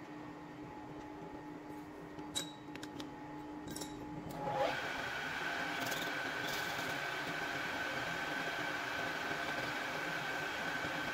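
A few light metallic clicks as a brass rod is set in a metal lathe's four-jaw chuck. About halfway through, the lathe spindle starts up with a brief rising whine, then runs steadily with a high-pitched whine.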